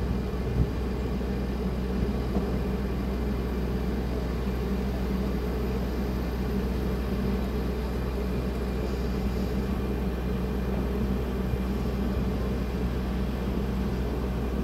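Steady low mechanical hum, unchanging in pitch and level.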